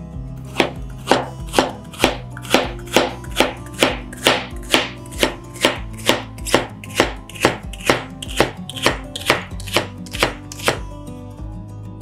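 Chef's knife slicing bitter melon into rings on a cutting board: a steady run of chops, a little over two a second, that stops near the end.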